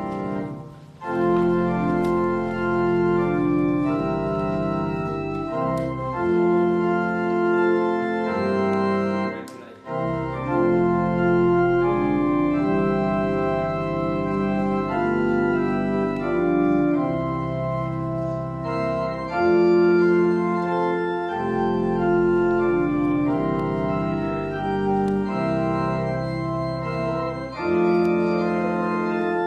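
Church organ playing held chords over a deep bass line, the chords changing every second or two, with two brief pauses, about a second in and about ten seconds in.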